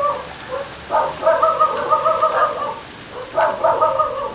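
An animal calling: three drawn-out, wavering calls, the second and third each about a second and a half long.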